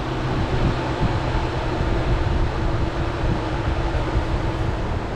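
Electric radiator cooling fans of a 2003 Mitsubishi Eclipse running steadily with a whooshing hum while the engine is switched off: they have come on by themselves.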